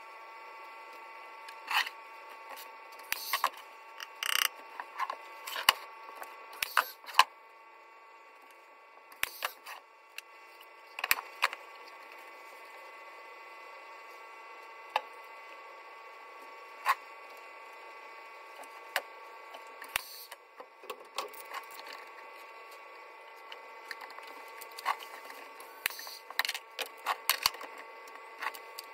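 Sharp knocks and clicks from plywood panels and tools being handled and set down while a small drawer box is glued and clamped together, at irregular intervals over a steady background hum.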